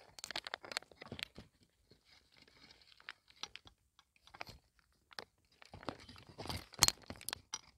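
A cat chewing and crunching dry snacks close to the microphone, in irregular bursts of crackly crunches with quieter stretches between.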